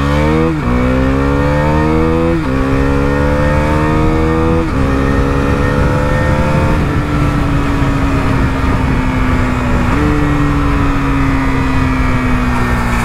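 Husqvarna Vitpilen 250's single-cylinder KTM-derived engine at full throttle through an aftermarket underbelly exhaust, revving up hard through the gears. The revs climb and drop back at three quick upshifts in the first five seconds, then settle to a steady drone at speed, with one more brief dip about ten seconds in.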